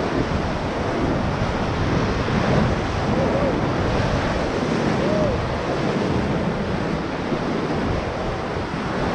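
Whitewater rushing steadily around a raft in a river rapid: a continuous loud wash of turbulent water.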